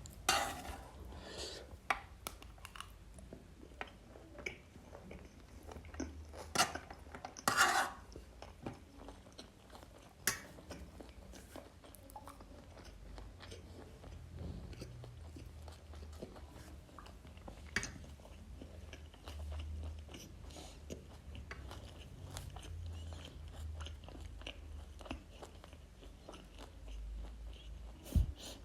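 Close-miked chewing of a mixed plate of biryani, seitan sadeko and momo, with scattered crunches and sharp mouth clicks.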